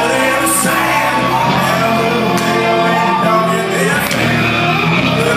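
Hard rock band playing live: the lead singer's vocals over electric bass and drums, loud and steady.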